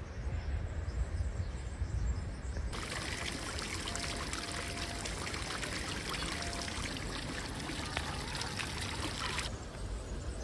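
Water spraying: a dense steady hiss with fine spatter that starts suddenly a little under a third of the way in and cuts off abruptly near the end, over a low rumble.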